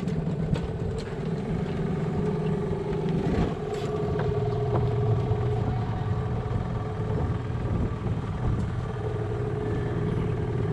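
Small engine running steadily at an even speed, a constant-pitched motor hum.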